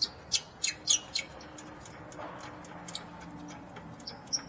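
A ratcheting wrench clicking as it backs out the top caliper bracket bolt on an Infiniti FX35's rear brake. A quick run of clicks, about four a second, comes in the first second or so, then a few sparse clicks near the end.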